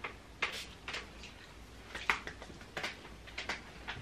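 Small pump spray bottle spritzing a fine mist onto a face: a string of short hissing puffs, some in quick pairs.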